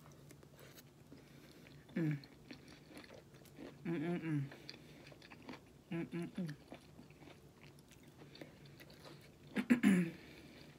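A woman chewing food with soft mouth clicks, making short closed-mouth hums every two seconds or so, the last the loudest.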